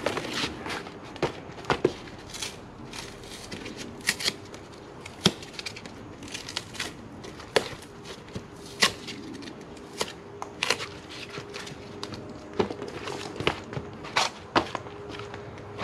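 Cardboard being torn and peeled off a block of cured expanding foam, with irregular sharp snaps and crackles as pieces rip and break away.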